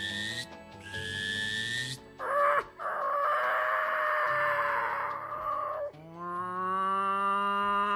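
A person imitating a crow by mouth with a hand cupped over it: a long, raspy caw about two seconds in. About six seconds in, a steady hooting call imitated the same way begins, over soft background music.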